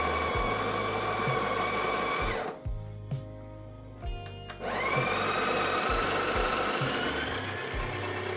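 Breville Barista Express's built-in burr grinder running coffee beans with a steady motor whine. It stops a little over two seconds in, then starts again about two seconds later, its pitch rising as it spins up. The beans are flushing leftover cleaning-tablet residue out of the burrs.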